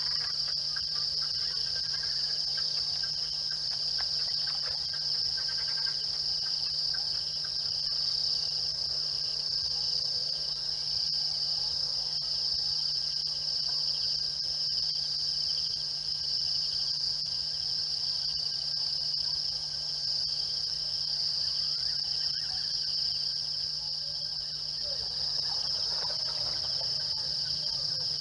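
A steady, high-pitched chorus of night insects trilling without a break, over a faint low hum.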